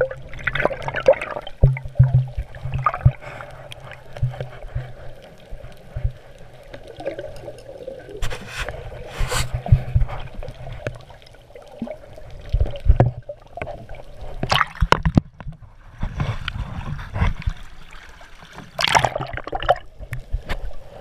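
Water sloshing and gurgling heard underwater around a swimming snorkeler, with a low rumble and many irregular dull knocks. Several louder rushes of water noise come through the second half.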